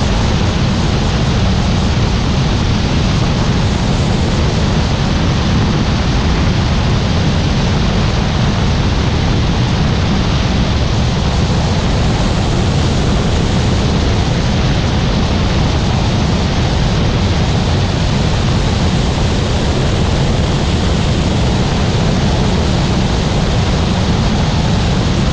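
Helicopter in flight: a loud, steady, even roar with no changes in pitch and no breaks.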